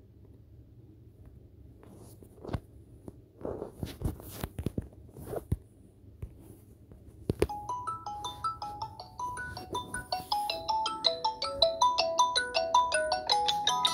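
A few sharp clicks, then about halfway through a Samsung Galaxy XCover 4s starts ringing for an incoming call. The ringtone is a quick melody of short plinking notes that grows steadily louder.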